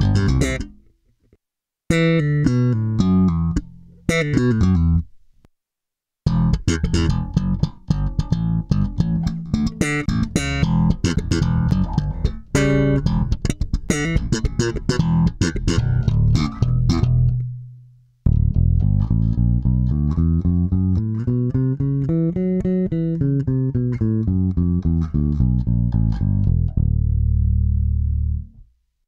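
Five-string electric bass, recorded direct, playing a phrase through an Origin Effects Cali76-TX compressor pedal. About 18 seconds in, after a brief gap, the same phrase plays through a Roger Mayer 615 compressor, with a long slide up and back down in pitch.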